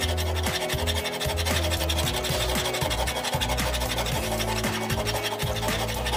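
Flat hand file rasping back and forth over the steel head of a rusty hatchet held in a vise. Background music plays along with it.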